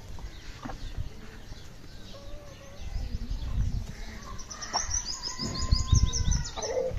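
Backyard chickens calling, with a small bird's fast run of high chirps, several a second, for about two seconds in the second half over a long, level drawn-out call.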